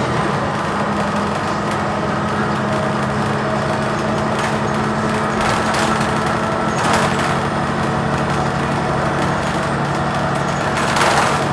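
Cummins Westport ISL-G natural-gas engine of a Blue Bird TX4 bus running at a steady pitch, heard from inside the moving bus, with a few brief rushes of noise about four and a half, seven and eleven seconds in.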